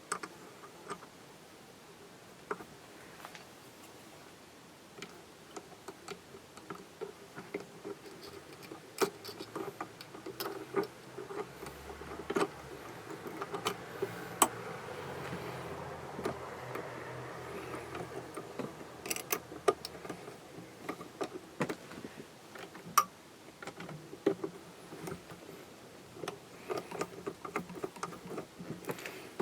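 Small metal sewing-machine parts being handled: irregular clicks and taps as an attachment is taken off and a ruffler foot is fitted to a Singer 201K, with a faint steady sound for several seconds around the middle.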